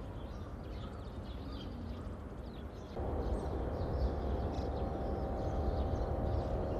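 Outdoor ambience of small birds chirping over a low rumble. About three seconds in, a steady hum of several held tones joins and the overall level rises.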